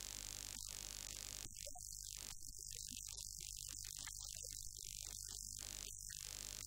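Faint room tone: a steady high-pitched hiss with a low electrical hum beneath it, and no speech.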